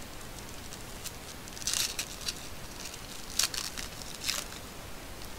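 Foil trading-card pack wrapper being crinkled and torn open by hand: a handful of short crackling rustles over a steady background hiss, the loudest a little past halfway.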